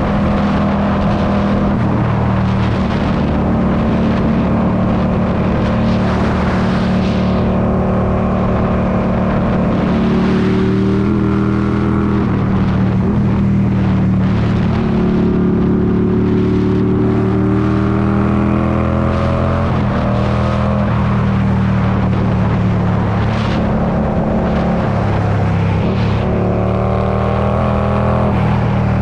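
Indian Scout Bobber's V-twin engine through straight pipes under hard acceleration, its pitch climbing through the revs several times and dropping back between climbs as it goes up through the gears.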